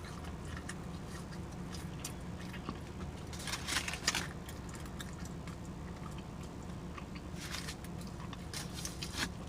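Close-miked chewing and mouth smacking of someone eating a hot dog and fries, coming in clusters of wet clicks about three and a half seconds in and again around seven and a half seconds, over a steady low hum.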